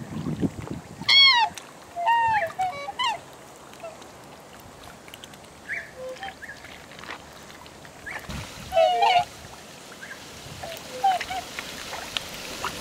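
Black swans calling: short, pitched honks that rise and fall, several in quick succession in the first few seconds and another cluster about nine seconds in.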